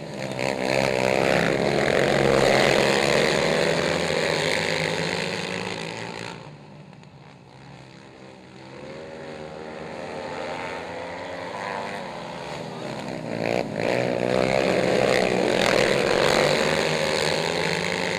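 Racing ATV engines at high revs as a pack of quads races by on a dirt track, several engines overlapping and wavering in pitch as they rev through the turns. The sound drops to a fainter, more distant drone about six seconds in and swells again about fourteen seconds in as the pack comes back past.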